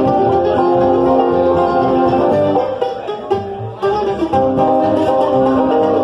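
Live bluegrass band playing: banjo, mandolin, acoustic guitar and upright bass together. The sound drops briefly about three seconds in, then the full band comes back.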